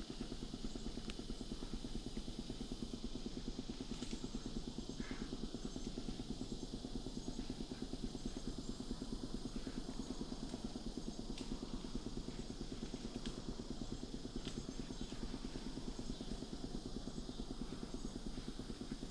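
Steady outdoor background noise: a constant low rumble under a high hiss, with a few faint ticks.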